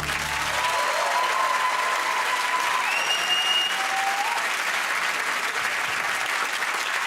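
Studio audience applauding steadily, with a few cheers and whistles over it.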